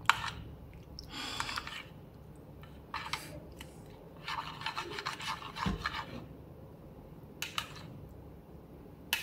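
Cooked banana-leaf parcel being handled and opened: several short bursts of leaf rustling and scraping, with a few sharp clicks.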